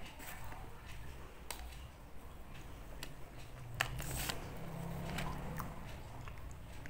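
Close-miked eating sounds of a soft cream-filled donut being pulled apart and bitten: scattered small clicks and crackles of the dough and wrapper, with a louder crackle about four seconds in.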